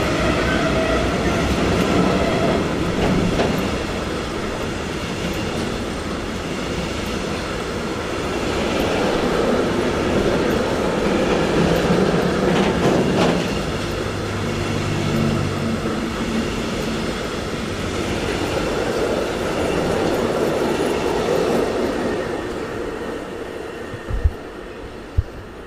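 A train running past on the tracks, its wheels rumbling steadily on the rails, fading away over the last few seconds. Two short thumps near the end.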